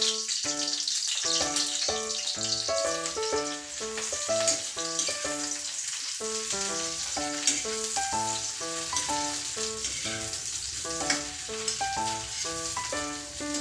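Sliced eggplant sizzling in hot oil in a wok as it is stirred, with a few sharp clinks of the metal spatula against the wok in the second half, over background music with melodic notes.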